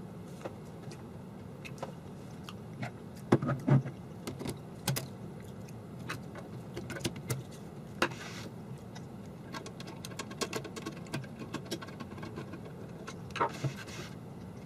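Metal parts of an R.C. Allen Model 75 mechanical adding machine clicking and clinking as it is handled and its printing carriage is fitted back on. Scattered small clicks, with a cluster of louder knocks about three and a half seconds in, a brief scrape around eight seconds, and another pair of knocks near the end.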